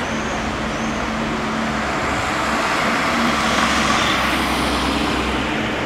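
Street traffic passing close by: a small van drives past, its engine and tyre noise swelling to loudest about four seconds in, over a steady low engine hum.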